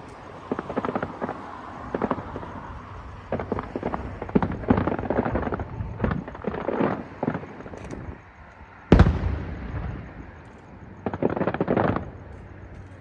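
Aerial fireworks bursting overhead: clusters of rapid crackling pops, with a single loud boom about nine seconds in that echoes away.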